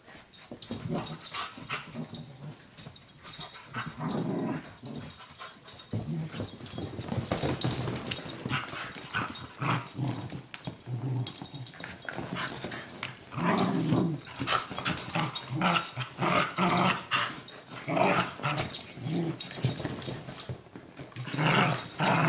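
A puppy growling in play: a long run of short, irregular growls and grunts.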